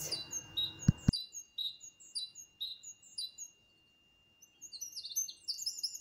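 Songbirds singing in woodland: a series of short, high, falling whistled notes about twice a second, then after a brief lull a quicker run of high chirps. Two sharp clicks sound about a second in.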